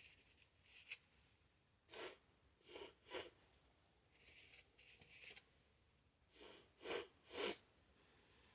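A person sneezing hard several times, sneezes brought on by chhinkni snuff to clear a burning pepper tickle in the nose. The sneezes come in two bouts, a quick run of three a couple of seconds in and a pair near the end.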